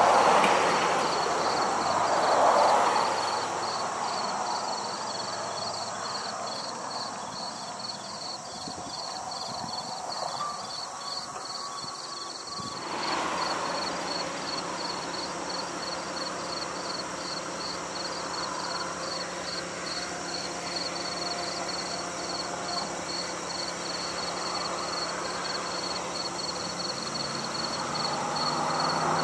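Insects chirping in a steady pulsing rhythm over the rolling of a passenger train hauled by vintage EMD F-unit diesel locomotives. The train is loudest at first, fades within a few seconds, and builds again near the end as the coaches roll past.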